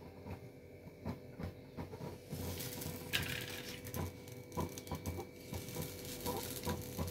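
Faint sizzling of uttappam batter on a hot dosa tawa, a little louder from about two seconds in, with light scattered taps as chopped onion is dropped onto it.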